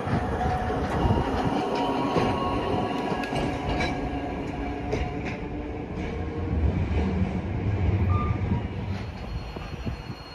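Hakodate city tram, an electric streetcar, running on its street rails: a steady rumble of wheels on track with scattered clicks, swelling to its loudest about seven to eight seconds in before fading toward the end.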